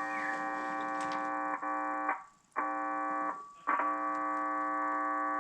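Kenwood TS-820S transceiver's monitor audio carrying a steady buzzing hum while transmitting, which cuts out twice for about half a second. The hum is the transmit fault being traced to a connector and harness on the mic input path.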